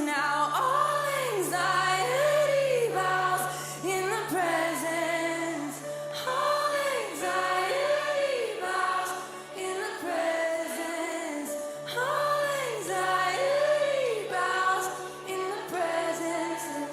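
Worship song: a woman's voice sings a repeating melodic phrase with other voices behind her, over a held low keyboard note that drops out for a couple of seconds about ten seconds in.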